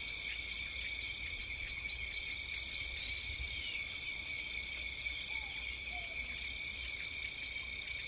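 Steady high-pitched insect chorus: several droning tones held without a break, with short chirps repeating at an even pace.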